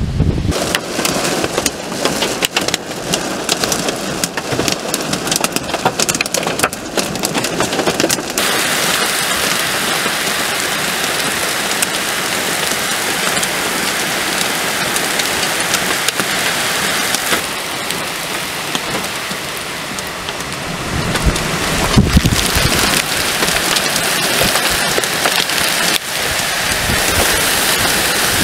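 Heavy wind-driven thunderstorm rain: dense crackling patter of drops for about the first eight seconds, then a steady hiss of downpour. About three-quarters through, a loud low rumble swells and fades over a couple of seconds.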